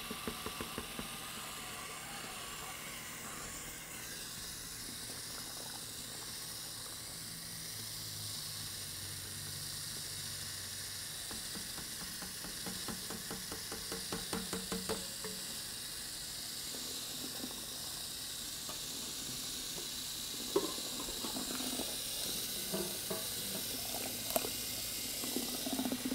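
Cordless drill turning a small squirrel-cage mixing paddle in a plastic bucket, stirring three-part urethane concrete as the powder component is blended in: a steady swishing hiss. There is a run of quick ticks around the middle and a few sharp clicks near the end.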